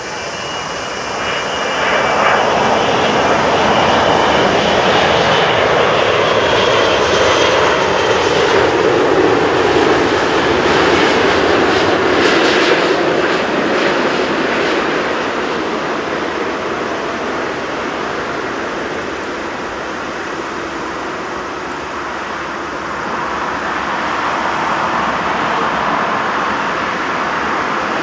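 Jet engine noise from an Airbus A380-861's four Engine Alliance GP7270 turbofans as it passes low on final approach. The noise swells about two seconds in and its pitch slides steadily downward as the aircraft goes by. It then eases off and swells again near the end as the aircraft rolls out on the runway after landing.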